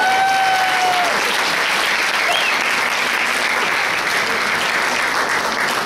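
Audience applauding steadily in a hall, with one long rising whoop that holds for about a second near the start.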